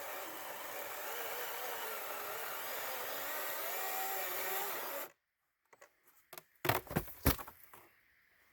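Greenworks 40 V cordless electric chainsaw cutting through a large solid log, its motor whine wavering in pitch under load. It stops abruptly about five seconds in, followed by a few sharp knocks.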